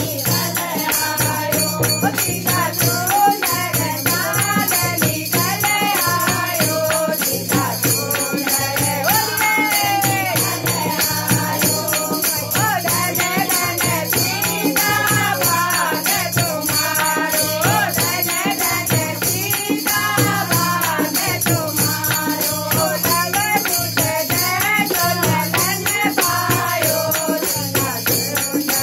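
A group of women singing a Holi folk song (Holi geet) together, over a steady beat of a hand-played dholak drum, hand-clapping and a jingling tambourine.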